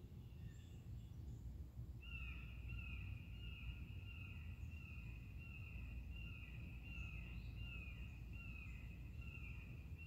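A bird calling a long series of evenly repeated notes, each slurring downward, a little faster than one a second, starting about two seconds in. Under it is a low, steady outdoor rumble.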